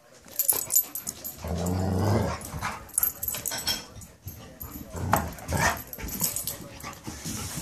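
Dogs play-growling: a low, drawn-out growl about a second and a half in, then shorter growls and grumbles with scuffling.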